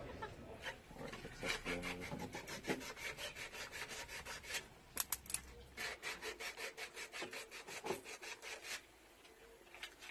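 Rapid rhythmic scraping strokes, about five a second, stopping briefly near the end.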